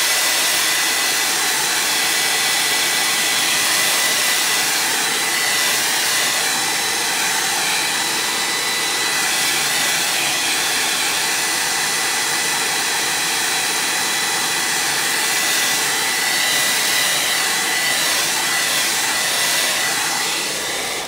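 Hand-held hair dryer blowing steadily, a constant rush of air with a thin high whine, drying freshly stamped ink. It is switched off at the very end.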